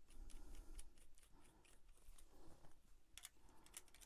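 Faint metallic clicks and ticks from a Solar rod pod's metal parts being handled as the small stubby legs are fitted to the front bar, with a few sharper clicks a little after three seconds in.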